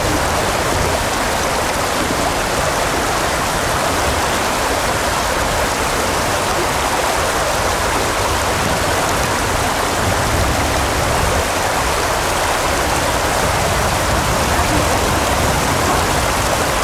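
Steady, unbroken rush of water, like a stream or waterfall running.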